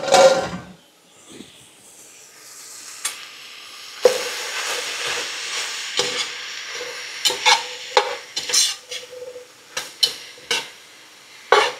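Chopped onions and browned ground beef sizzling in a hot pan while a utensil stirs and scrapes the bottom. There is a sharp clatter right at the start. The sizzle swells about four seconds in, and a series of short scraping strokes follows.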